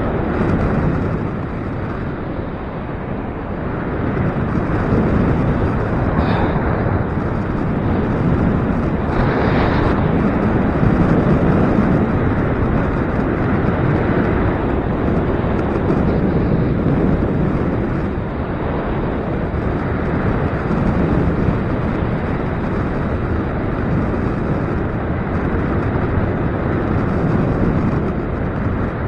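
Gusty wind buffeting the microphone: a steady, loud rumbling noise that swells and eases with the gusts.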